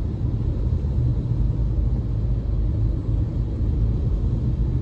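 Steady low rumble of a moving car heard from inside its cabin, engine and tyre noise on a rain-wet road.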